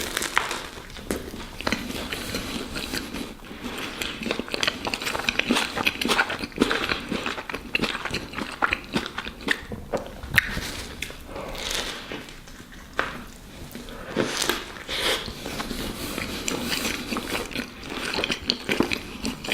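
A person chewing and biting into a tuna baguette sandwich close to the microphone, with irregular crackly crunching of the bread and wet mouth sounds.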